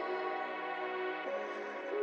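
Background music: slow ambient synth with long held notes, moving to a new chord a little past the middle.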